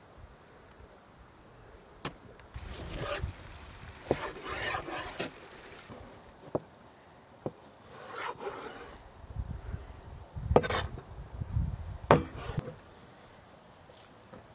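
Cleaver cutting raw beef on a wooden cutting board: rough slicing and scraping through the meat, with the blade knocking sharply on the board about half a dozen times.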